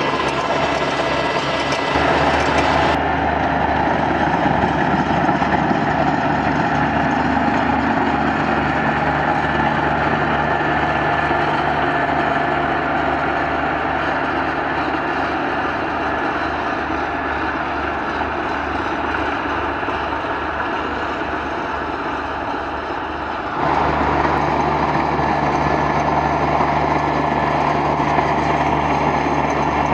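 Kubota BX25 compact tractor's three-cylinder diesel engine running steadily under load, driving a PTO snowblower through heavy, wet snow. The sound shifts abruptly in tone twice, about three seconds in and again later.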